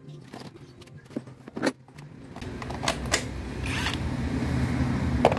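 A few light clicks and knocks, then a motor vehicle engine running steadily as a low hum that grows louder from about two seconds in.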